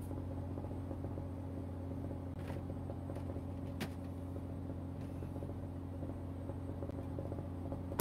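Fishing boat's engine running with a steady low drone, with a couple of faint clicks a few seconds in.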